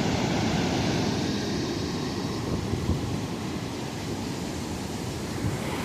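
Wind buffeting the microphone over the wash of ocean surf: a steady rushing noise with a rumbling low end.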